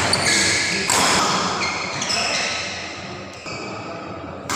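Badminton rally sounds: rackets striking the shuttlecock with short taps and thuds, and players' footwork on the court floor, with spectators' voices in the background.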